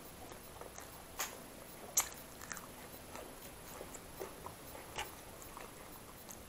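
Close-up sounds of a person eating: soft chewing and biting, with sharp, crisp crunches about a second in, two seconds in and five seconds in.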